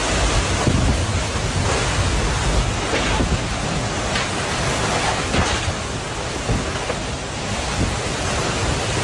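Violent wind and rain of a tornado passing close by, a steady heavy rush of noise with a few brief knocks about 3, 4 and 5½ seconds in.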